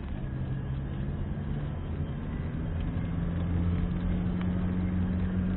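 Car engine and tyre noise heard from inside the cabin while driving at steady speed. The engine note rises a little about two seconds in.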